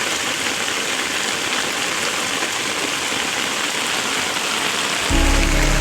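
Heavy rain pouring down steadily as an even hiss. Background music comes in about five seconds in.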